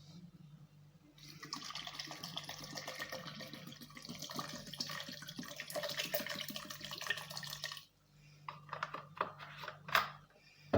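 Water poured into a blender jar onto cut lemon pieces, a steady splashing pour lasting about six seconds. It is followed by a few short clicks and knocks.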